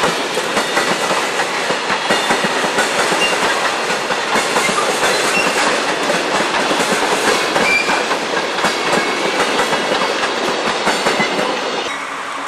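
Amtrak train's cars rolling slowly past, the wheels clicking and rumbling over the rail joints in a steady clickety-clack. The sound drops a little near the end.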